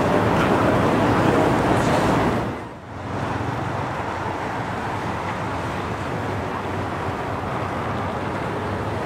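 City street ambience of road traffic: an even traffic noise, louder for the first two and a half seconds, then after a brief dip a steadier, quieter traffic hum.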